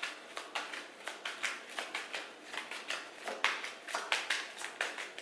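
A deck of large divination cards shuffled by hand: a quick, irregular run of soft taps and flicks as the cards slide and slap against each other, with a few longer sliding sounds.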